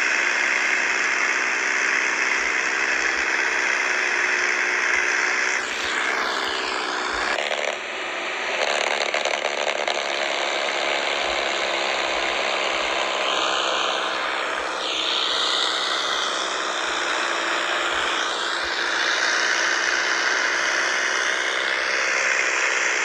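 Radio-controlled toy tractor's small electric motor and gearbox whirring steadily as it pulls a loaded trailer, its note shifting and dipping a few times.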